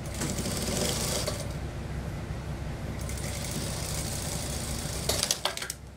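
Industrial single-needle sewing machine running steadily at speed, stitching a trouser waistband seam, with a few sharp clicks near the end.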